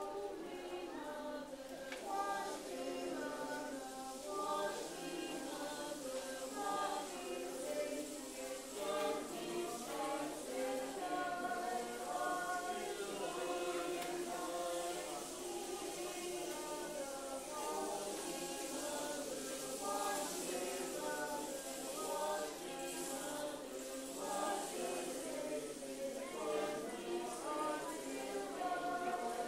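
Mixed choir of men and women singing slow, sustained chords, with the soft rushing hiss of a tall wooden rainstick turned end over end behind the voices.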